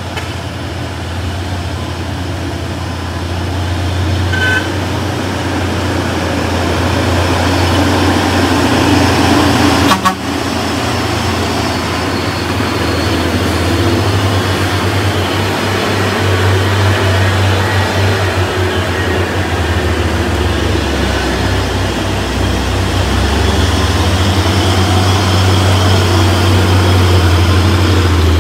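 Hino 300 light truck's diesel engine labouring up a steep climb, a steady low drone that grows slowly louder. A brief horn toot sounds about four seconds in, and a sharp click about ten seconds in.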